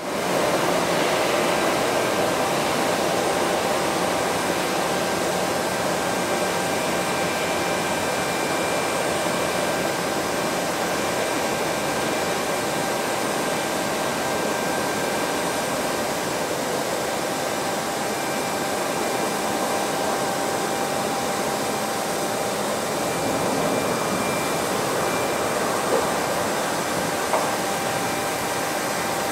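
Jet turbine noise at an airport apron: a steady rushing roar with a faint high whine held throughout, and two brief clicks near the end.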